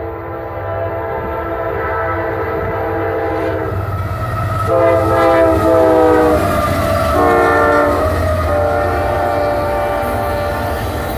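CSX freight locomotive's air horn sounding the grade-crossing signal (long, long, short, long), its chord dropping slightly in pitch as the lead locomotive passes. Under it run the rumble of the diesel locomotives and the clatter of the train's wheels.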